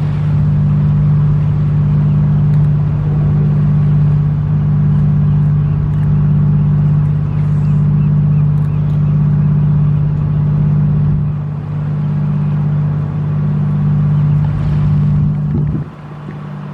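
A boat engine running with a steady low drone, which drops away abruptly near the end.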